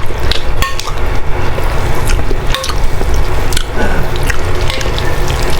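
Eating boiled instant noodle soup close to the microphone: slurping and chewing, with repeated short clicks of a spoon against the bowl, over a steady rush of rain.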